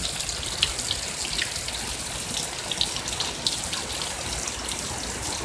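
Heavy rain pouring down steadily: a constant wash of rainfall dotted with many sharp drips and splashes of drops.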